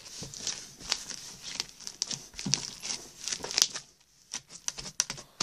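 Homemade slime packed with plastic beads being squished and stretched in the hands, giving irregular crunchy crackles and clicks, with a short lull about four seconds in.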